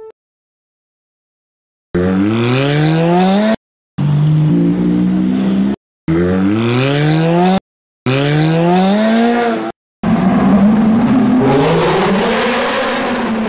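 Race car engine revving up in four short bursts, each rising in pitch and cut off sharply by silence. From about ten seconds in a longer stretch follows in which the engine runs on under heavy tyre noise as a wheel spins in a smoky burnout.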